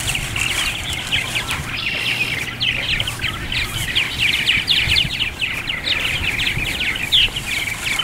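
A colony of purple martins chattering around their house: many quick, overlapping chirps and gurgles, without pause.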